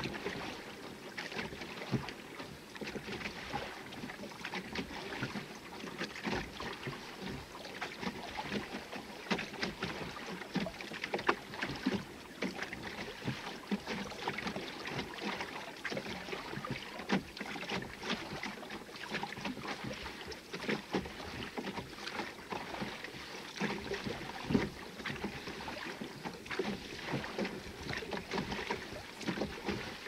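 Rowing a small dinghy: oars dipping and pulling through the water, with water splashing and lapping against the hull in a steady hiss broken by frequent short, sharp splashes.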